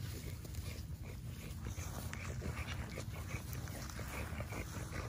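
American Bully dogs in long grass, making short breathy noises over a steady low rumble.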